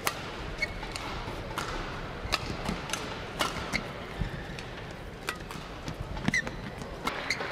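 Badminton rally: sharp racket strikes on the shuttlecock every half second to a second, with short squeaks of shoes on the court over a steady arena background.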